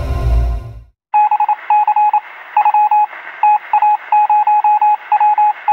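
A music sting fades out in the first second. After a brief pause come short electronic beeps, all at one pitch, in quick irregular runs: a typing-style sound effect that goes with the copyright text appearing on screen.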